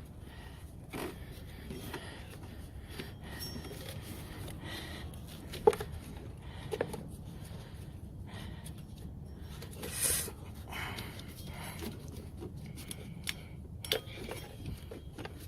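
Scattered light clicks, knocks and rubbing as an old rubber serpentine belt is handled and worked out from around the engine's pulleys, with one sharp click about six seconds in and a short scraping rub near ten seconds.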